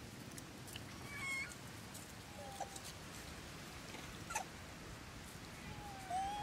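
A few short, squeaky animal calls over a steady hiss: a brief squeak, a short low call, then a longer rising call near the end, which is the loudest. There is one sharp click a little after four seconds.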